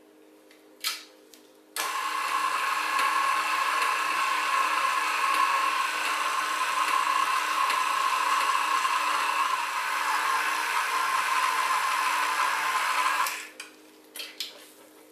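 KitchenAid Artisan stand mixer running steadily on its lowest (stir) speed, its flat beater mixing raw fish chunks into paste: an even motor whine. A sharp click comes just before the motor starts, and a few clicks follow after it stops.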